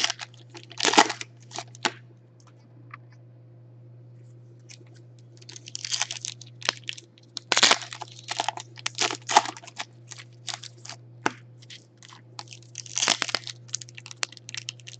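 Foil trading-card pack wrapper crinkling and tearing in irregular bursts as hands struggle to pull open a pack that resists opening, with a pause of a few seconds about two seconds in. A steady low hum runs underneath.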